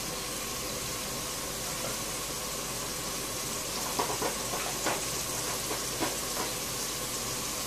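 Spinach filling cooking in a stainless steel pot on a gas stove: a steady hiss of steaming and sizzling, with a few faint light taps around the middle.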